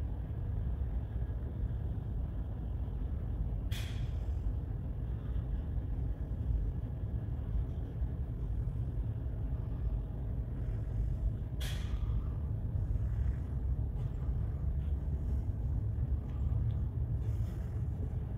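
Steady low rumble of the ferry Salamanca underway at sea, her engines and hull heard from inside a passenger deck. Two sharp clicks come about eight seconds apart.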